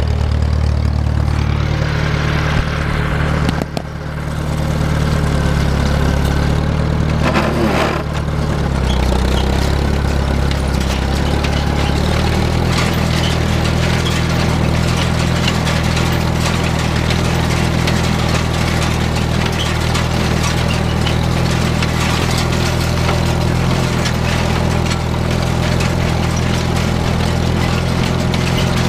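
Farmall Super MTA tractor's four-cylinder engine running steadily under load while pulling a side delivery rake, with rattling from the rake. The engine dips briefly about four seconds in, and its note changes about twelve seconds in.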